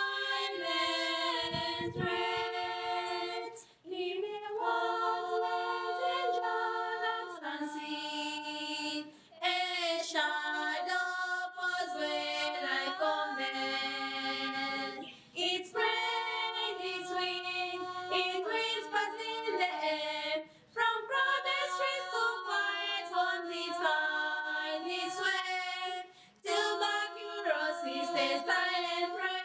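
A small group of schoolgirls singing a cappella, several voices in harmony on long held notes. The song moves in phrases of about five seconds, each broken by a brief pause for breath.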